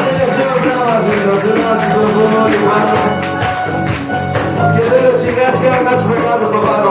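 Full band playing live unplugged (drums, bass guitar, guitar and keyboards) with a steady jingling percussion rhythm and a pitched melody line moving above it.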